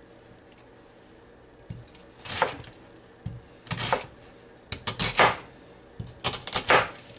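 Kitchen knife cutting an onion into chunks on a plastic cutting board: a series of sharp cuts, about one a second, starting about two seconds in.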